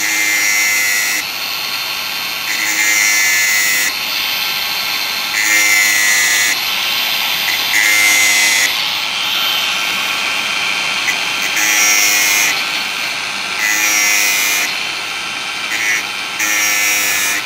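Makita DGA504 cordless angle grinder with a thin 115 mm stainless cut-off disc, running at a steady whine, grinding a chainsaw chain's cutters in about seven short passes of roughly a second each. This is the sharpening of the chain.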